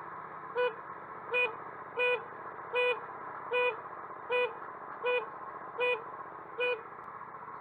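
A short pitched electronic beep repeating evenly about every three-quarters of a second, nine times, then stopping about a second before the end, over a steady rushing background noise.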